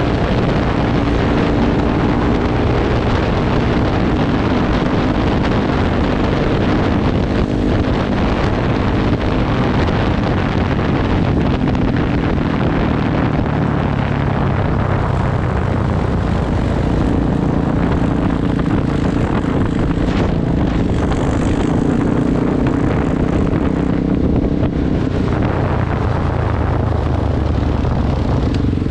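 Sport quad ATV engine running steadily under way on pavement, holding an even engine note that shifts slightly about halfway through.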